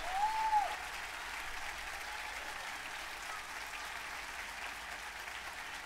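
Audience applauding steadily at the end of a tango song, with one short rising-and-falling call from the crowd at the start.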